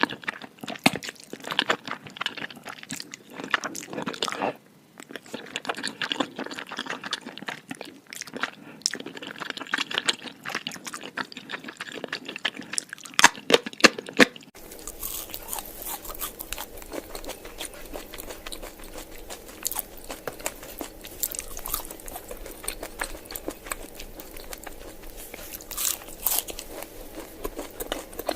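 Close-up chewing and crunching of food, dense crisp crackles through the first half. About halfway through, the sound changes abruptly to quieter, sparser chewing over a steady low hum.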